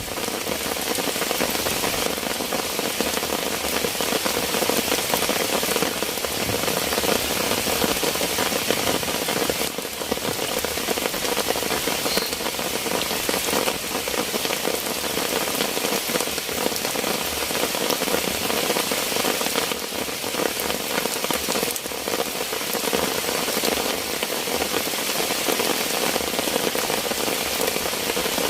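Heavy rain falling steadily, a dense, even patter on surfaces.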